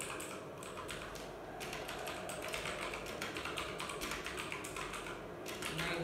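Fast typing on a computer keyboard: a quick, continuous run of key clicks, busiest in the middle.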